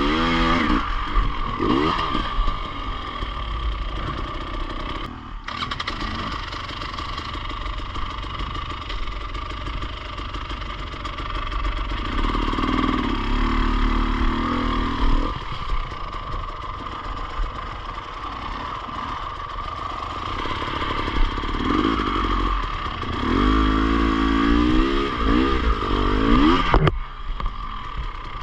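Enduro motorcycle engine running under load while being ridden, revs rising and falling several times, with two brief cuts in throttle, about five seconds in and near the end.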